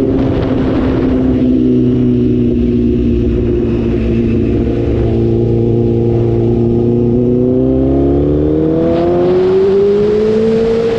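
2008 Yamaha R6's inline-four engine through an Akrapovic megaphone exhaust, running at a steady pitch that sags a little. Over the last three seconds the pitch rises steadily as the bike accelerates.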